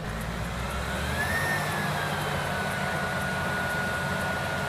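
Off-road SUV's engine running under load, revving up about a second in and holding the higher speed, with a thin high-pitched whine alongside.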